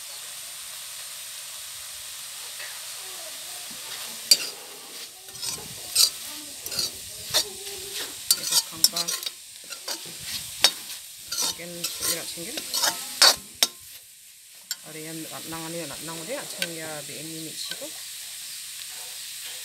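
Frying tripe and greens sizzling in an aluminium wok. After a few seconds, a steel ladle stirs and scrapes through the food with many sharp metal-on-metal clacks. The stirring stops a few seconds before the end.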